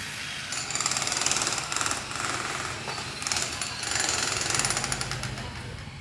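Jackhammer hammering rapidly in several bursts, breaking up concrete, with short pauses between bursts.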